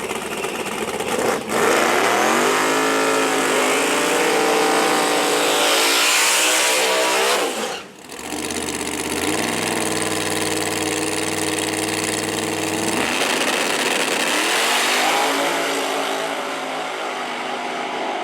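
Drag-racing car engine revving hard, its pitch rising for several seconds before cutting off sharply. A steady held engine note and another rise in pitch follow.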